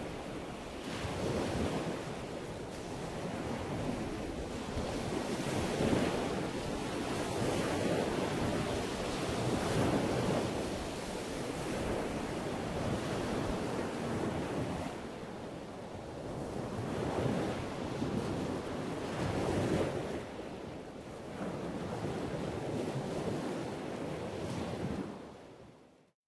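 Wind gusting over the microphone, a rushing noise that swells and eases every few seconds, fading out near the end.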